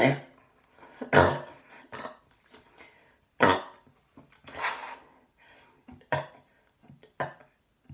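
A woman burping again and again in short, separate bursts, the loudest about a second in and another at about three and a half seconds.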